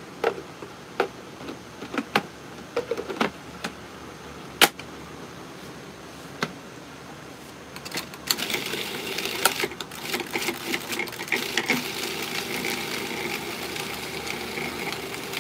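Sharp plastic clicks and knocks as a food processor's lid and pusher are fitted. About eight seconds in, the food processor's motor starts and runs steadily, blending a damp mix, with an uneven churning over the hum.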